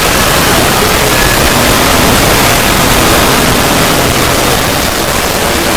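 Loud, steady rushing noise drone of a 'void' sound effect. It spreads evenly from deep rumble to high hiss, with faint wavering tones drifting within it.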